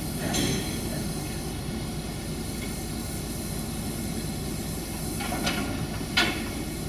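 Steady low rumble and hiss of a steam locomotive standing in steam, with a few short sharp sounds near the end, the loudest about six seconds in.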